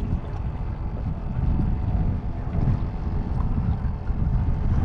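Wind buffeting the microphone on an open boat: an uneven low rumble that rises and falls in gusts.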